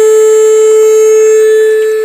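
Ram Boat Saver bilge pump unit in an RC boat giving off a loud, steady buzzing tone while it pumps water out of the hull. The tone does not waver and is a little quieter near the end.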